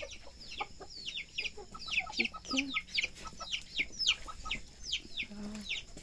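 Chickens calling: a dense run of quick, high, falling chirps, several a second, with a few short low clucks among them.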